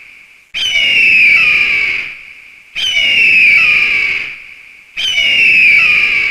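Eagle screaming three times, about two seconds apart: each a harsh, high cry that starts suddenly, slides down in pitch for about a second and a half, then fades.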